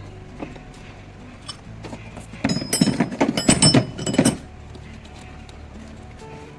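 Metal spanners and hand tools clinking and rattling against each other for about two seconds, starting about two and a half seconds in.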